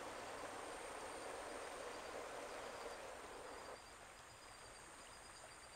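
Faint outdoor ambience: a steady soft hiss with no distinct events, which steps a little quieter about four seconds in.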